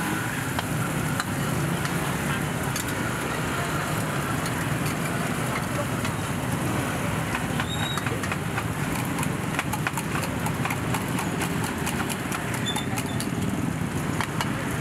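Thai omelettes deep-frying in hot oil in two woks, a steady sizzle, with a metal ladle and spatula clicking against the woks again and again. Crowd chatter behind.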